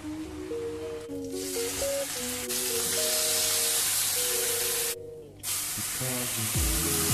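Food sizzling in a hot non-stick frying pan as a steady hiss that starts about a second in and drops out briefly near five seconds, under background music with a melody.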